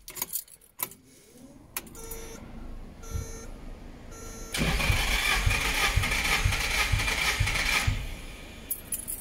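Nissan SR20DET four-cylinder engine cranked on its starter motor for about three seconds with all spark plugs out and the fuel pump disabled, so it turns over without firing. Each compression stroke against the gauge in cylinder one gives an even pulse about two and a half times a second. Three short beeps about a second apart come just before the cranking.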